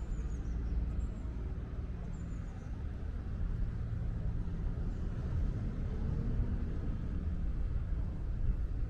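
City street background noise dominated by a steady low rumble of passing traffic, with a few faint high chirps in the first three seconds.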